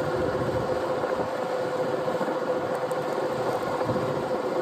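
A steady engine hum, an even drone with one constant held tone that does not change.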